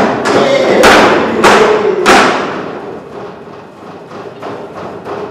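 Fists pounding on a tabletop in a steady beat, about one heavy thump every 0.6 s. The thumps stop about two seconds in and die away in the hall's echo, with a held tone under them until they stop.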